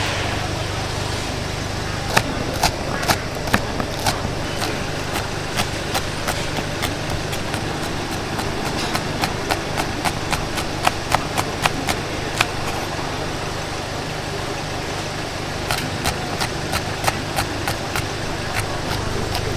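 Metal spatula clanking against a wok in quick runs of strikes, with gaps of a few seconds between runs, over a steady low roar.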